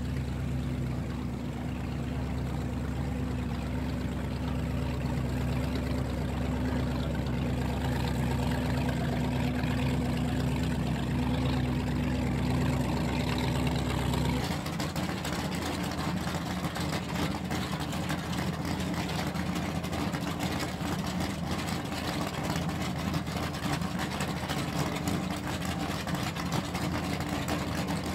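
Offshore racing powerboat's engines running at low speed: a steady, even-pitched low drone. About halfway through it changes abruptly to a different, slightly quieter and rougher engine sound.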